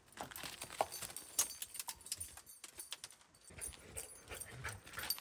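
A dog running on a gravel road during a game of fetch: quick, irregular crunches and clicks of paws and feet on loose gravel.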